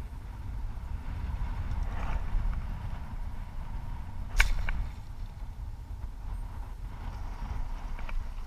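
A bowfishing bow shot about halfway through: one sharp snap as the string is released, followed by a couple of quick clicks, over a steady low rumble of wind on the microphone.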